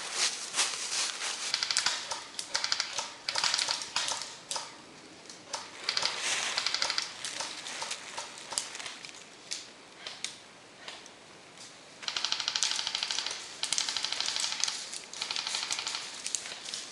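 Airsoft guns firing rapid full-auto bursts of about a second each, with scattered single shots between.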